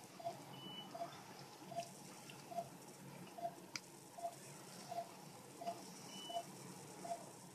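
Anesthesia monitor beeping faintly and steadily, about four short beeps every three seconds, pacing the anesthetized dog's heartbeat; a brief higher tone sounds twice.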